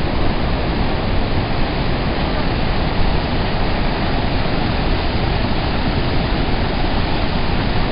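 Hukou Waterfall on the Yellow River: a huge volume of water falling and churning, a loud steady rush with no let-up.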